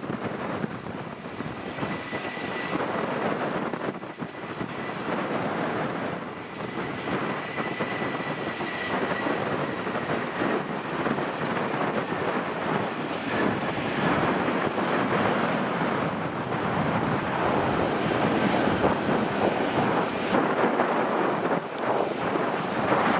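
Jet noise from an Airbus A319's two IAE V2500 turbofans at takeoff power, a dense rushing sound that grows steadily louder, with a thin high whine over it.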